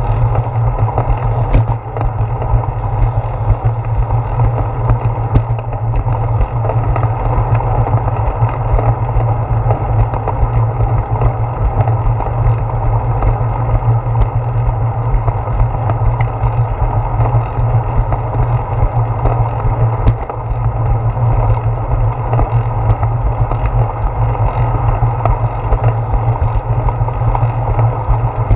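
Steady wind rumble and road vibration of a bicycle riding on a concrete path, picked up by a handlebar-mounted GoPro Hero 4 in its housing: a loud, muffled, continuous low rush with tyre hum.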